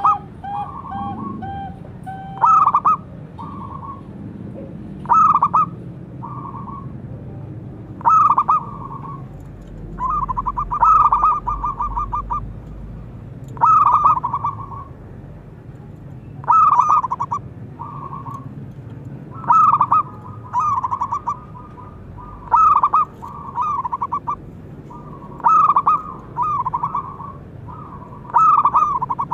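Zebra dove (perkutut) cooing: short, rapid trilled coo phrases, repeated about every three seconds.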